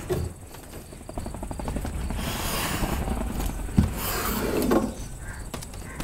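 Rummaging through folded clothes in a wooden wardrobe: fabric rustling and things being shifted about, with small clicks and one short knock a little before the middle.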